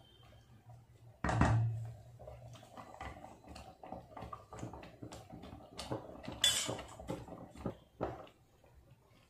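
A spatula stirring a thin semolina and water mix in a nonstick pan, with irregular knocks and scrapes against the pan. There is a louder clatter about a second in and a sharp scrape a little past halfway, over a low steady hum.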